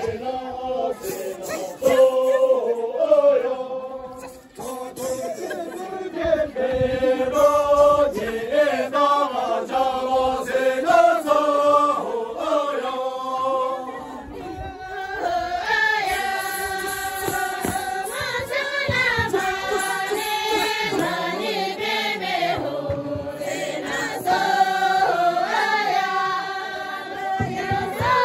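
A group of voices singing a traditional circle-dance song together, a chant-like melody in long repeated phrases; the singing grows fuller and brighter about halfway through.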